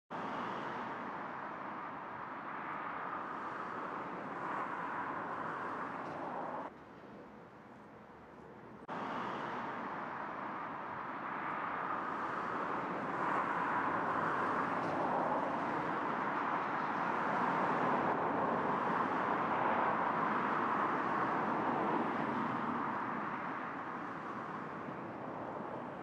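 Distant road traffic: a steady rush that swells louder in the second half and eases off near the end. The noise drops away suddenly for about two seconds early on, then comes back.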